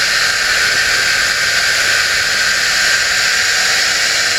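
Steady, loud running noise of a 24-foot Skipjack runabout underway: its 307 Chevy V8 driving an OMC outdrive, under a constant rush of water and air.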